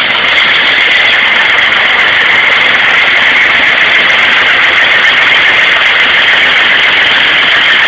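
An engine under test, running loud and steady at an even speed with no change in pitch.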